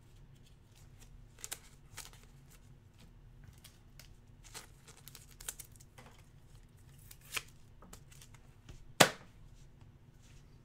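Trading cards and a hard plastic card holder being handled on a table: light rustles and scattered small taps, with one sharp plastic click about nine seconds in.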